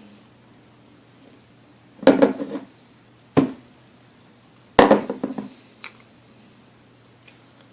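Small metal parts and tools clattering on a work surface: three bouts of knocks, the first and last made of several quick rattling hits, with a light click after.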